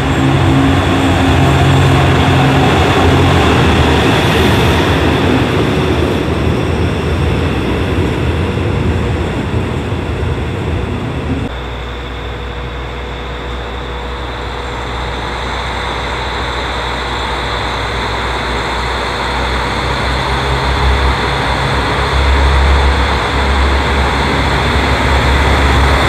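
Diesel railcar running, a steady low engine drone over rail noise. The sound changes abruptly about a third of the way in to a different, deeper hum.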